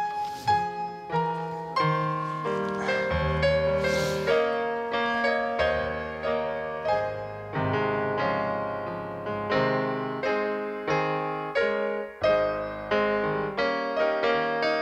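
Solo piano playing a slow tune in chords, each note struck and left to fade, at an unhurried, even pace.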